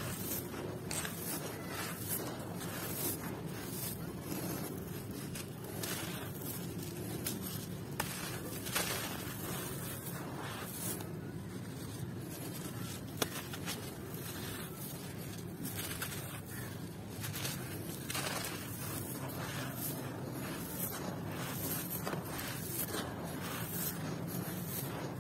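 Hands scooping, pouring and pressing dry sand-cement dust and grit: a continuous gritty rustling and crunching, with a few sharp ticks.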